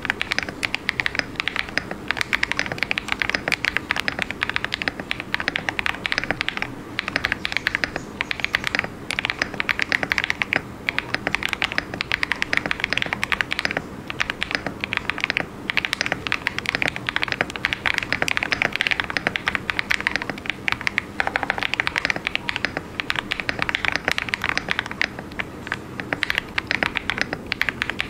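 Fast, continuous typing on a KBD67 Lite mechanical keyboard with lubed KTT Kang White linear switches, a polycarbonate plate and plate and case foam: a rapid stream of key clacks broken by a few short pauses.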